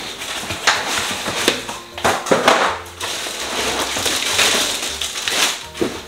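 Cardboard box flaps and plastic wrapping rustling and crinkling as a boxed coffee maker is pulled from its carton, with several sharp scrapes of card against card.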